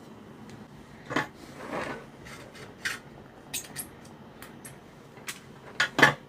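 Small hard objects and tools handled on a workbench: scattered clicks, taps and clinks, with louder knocks about a second in and near the end.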